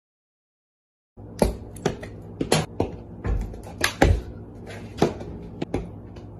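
About a second of silence, then a string of irregular sharp clicks and knocks, roughly one or two a second, over a low steady hum in a small room.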